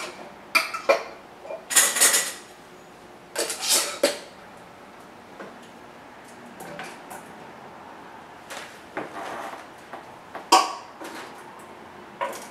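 Metal canning lids and screw bands clinking and scraping against glass mason jars and the countertop as the jars are lidded, in a series of sharp separate clinks with a few short scrapes.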